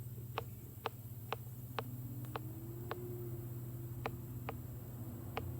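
Condor Terrasaur knife slicing a large mushroom, the blade tapping through onto the cutting board in quick even chops, about two a second with a short pause midway, over a steady low hum.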